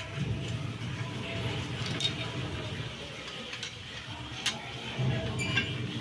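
A few sharp metal clinks from the steel parts of a satellite dish mounting bracket being handled and a nut being turned with a long metal tool, over a steady low background hum.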